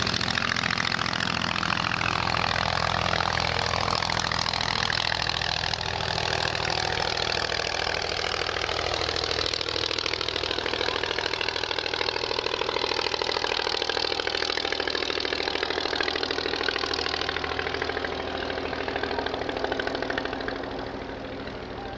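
Curtiss-Wright CW-1 Junior's small pusher aero engine running steadily at full power as the plane takes off and climbs out, its sound easing off near the end as the plane flies away.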